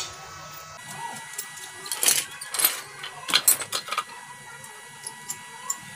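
Light metallic clicks and taps of bolts being handled and set into the end plate of an electric water pump motor, a cluster of sharp clicks between about two and four seconds in.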